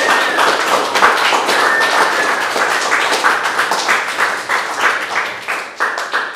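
Audience applauding, a dense, steady patter of handclaps.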